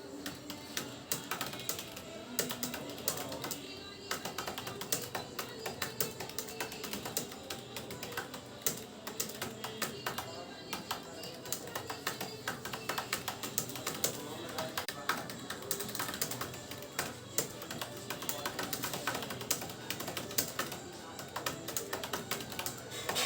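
Fast, continuous typing on a computer keyboard, many keystrokes a second, over background music.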